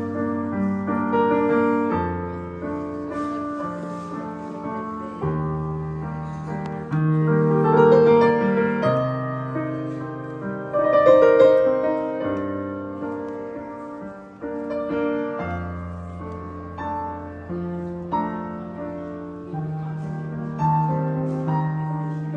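Background piano music: slow, held chords over a low bass note that changes every two to three seconds.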